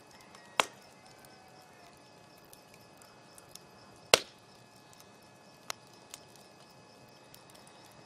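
Wood fire crackling: two loud, sharp pops, about half a second and four seconds in, and a couple of smaller snaps a little later, over faint ticking and a low hiss.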